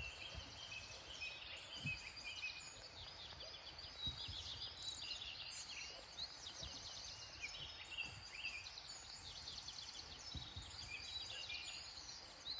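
Faint chorus of many birds chirping and calling over one another, with short, quick high-pitched notes, over a low steady hiss.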